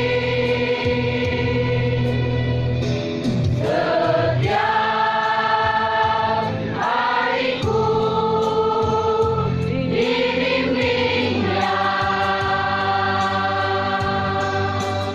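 A mixed choir of men and women singing together, holding long notes that change every second or two.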